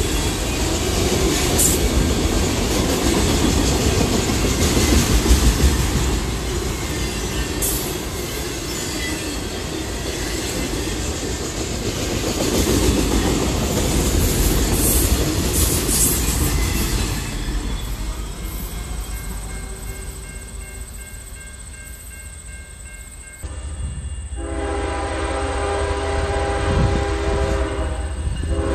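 Freight train of autorack cars rolling past, a steady rumble with wheel clicks over the rail joints, fading away. After a sudden cut about three-quarters of the way through, a diesel locomotive's air horn sounds a long multi-note chord to the end.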